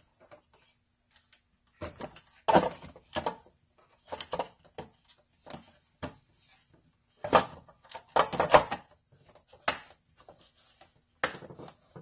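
Plastic housing of a portable air compressor being handled and fitted back together: a series of irregular knocks, clicks and rattles as the case halves are set in place.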